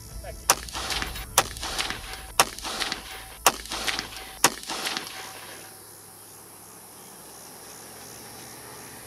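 Five 5.56 rifle shots from an AR-15 with a 12.5-inch LMT barrel, fired about one a second, each a sharp crack with a short echo. After the last shot there is steady outdoor background noise.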